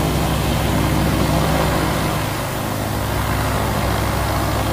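Small single-engine propeller airplane's engine and propeller droning steadily in the cockpit on final approach to a grass runway, easing slightly about two seconds in.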